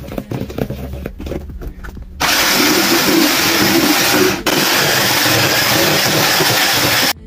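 Electric hand mixer beating cake batter: loud, steady whirring that starts about two seconds in, breaks for an instant midway and stops just before the end.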